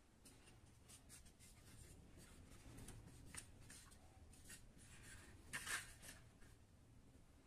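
Faint handling noise of a toy helicopter being turned over in the hands: small clicks and rubbing, with a slightly louder rustle a little past halfway.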